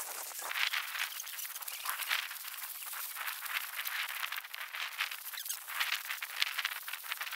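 Footsteps crunching and brushing through dry grass and brittle bush litter, an irregular crackle of steps.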